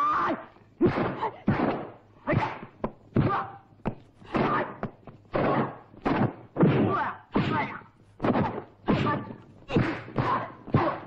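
Dubbed punch-and-kick sound effects of a 1970s Hong Kong kung fu fight: a fast series of more than a dozen thuds and whacks, mixed with the fighters' short shouts and grunts.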